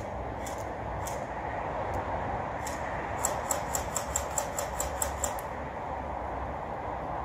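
Airsoft guns firing: a few scattered shots, then a quick string of about ten shots, roughly four to five a second, starting about three seconds in and stopping about two seconds later. A steady background noise runs underneath.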